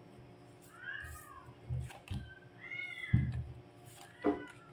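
A cat meowing twice, once about a second in and again near the three-second mark, over soft taps of tarot cards being shuffled and laid on a wooden table.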